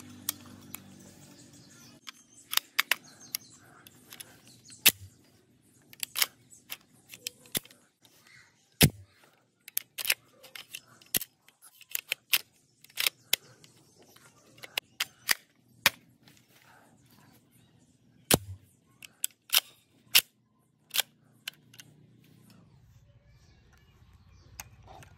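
Sharp metal clicks and clacks of an M16A2 rifle being handled, its action and parts worked by hand: a few dozen irregular clicks, some single, some in quick pairs.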